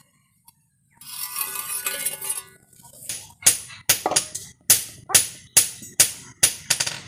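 Background music: a short noisy swell, then a steady beat of sharp, ringing metallic-sounding strikes, about two to three a second.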